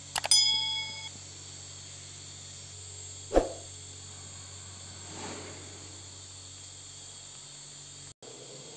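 A light clink that rings on for under a second with a few clear tones, then a single dull knock about three seconds later, over a steady low hum.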